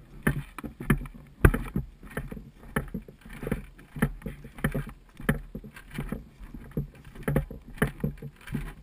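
Running footsteps crunching over a dry forest floor of pine needles, moss and twigs, about two strides a second, starting a moment in.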